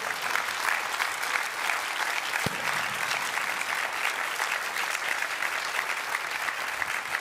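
Audience applauding: dense, steady clapping from many hands.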